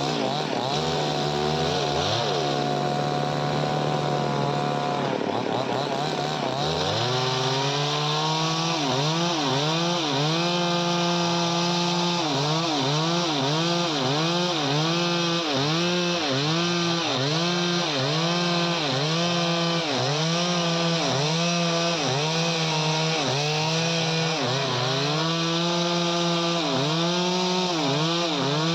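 Chainsaw engine running at a steady speed, then from about seven seconds in its pitch rises and falls over and over, about once a second, as it cuts through wood.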